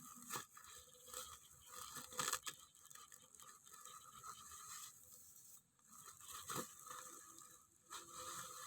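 Faint rustling and crackling of dry material being handled, with a few sharper crackles, the loudest about two seconds in.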